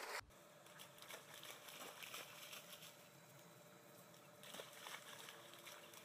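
Near silence, with faint splashes and footfalls from two dogs running through a shallow puddle on grass. A louder sound cuts off suddenly at the very start.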